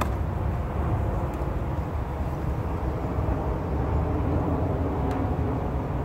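Steady hum of many honeybees around an opened hive, over a constant low rumble.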